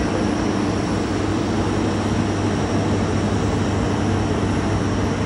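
Jet engines of a Thai Airways widebody airliner running close by on the apron: a steady, unbroken noise with a low hum and a faint high whine.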